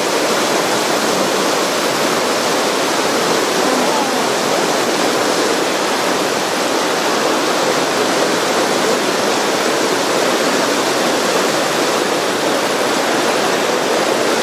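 Whitewater rapids of a slalom course rushing loud and steady.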